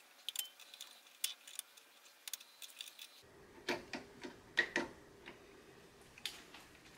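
Scattered light metal clicks and clinks of pliers gripping and working a small gear on an electric motor's shaft held in a vise, with a cluster of louder knocks around the middle.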